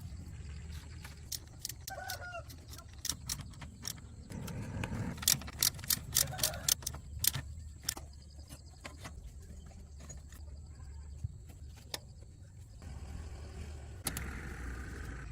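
Loose metal clinking and jangling over a steady low rumble, with a short chirp about two seconds in.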